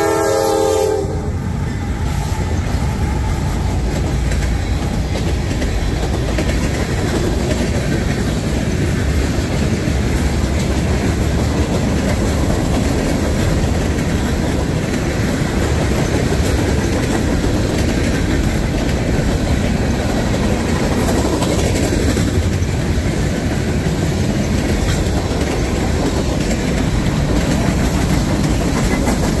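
A Norfolk Southern freight train's air horn ends about a second in. Then the train rolls steadily past at close range, its steel wheels running on the rails.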